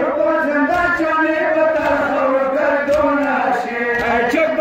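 Male voices chanting a Pashto nohay, a sung mourning lament, in a steady drawn-out melody.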